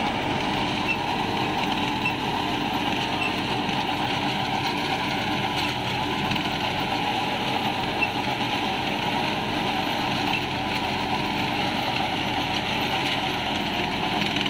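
Mahindra Arjun 605 tractor's diesel engine running steadily under load, driving an 8.6 ft Jagatjit super seeder whose rotor churns through straw stubble and soil.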